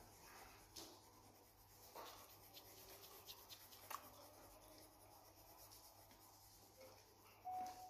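Faint scratching of a coloured pencil shading back and forth across paper, with a few light taps. A short steady tone sounds briefly near the end.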